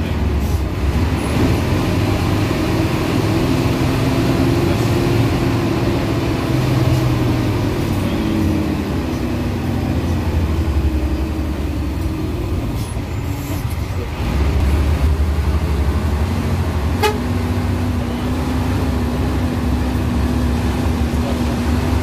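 Intercity bus engine and road rumble heard from inside the moving bus, the engine's pitch rising and falling as it changes speed, then settling to a steady drone after it picks up again.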